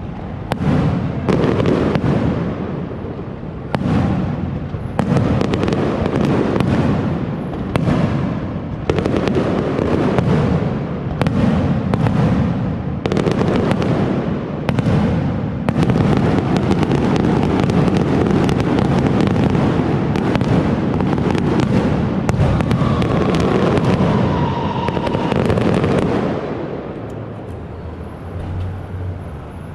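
Aerial firework shells bursting in rapid succession: many sharp bangs over a continuous rumble, thinning out and fading about four seconds before the end.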